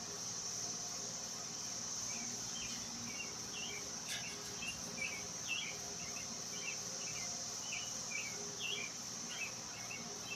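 Steady high-pitched drone of crickets or similar insects, with a string of short chirps over it from about two seconds in and a single sharp click about four seconds in.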